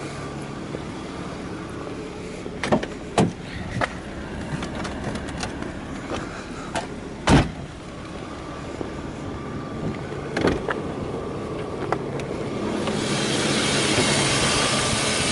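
A car's hood being released and lifted open: a handful of separate sharp clicks and knocks. Under them runs a faint steady low hum, and a steady hiss rises near the end.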